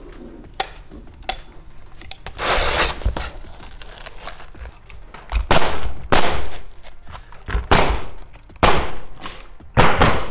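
Pneumatic roofing nail gun firing into asphalt shingles: about five sharp bangs spaced roughly a second apart in the second half. A longer rustle comes about two and a half seconds in.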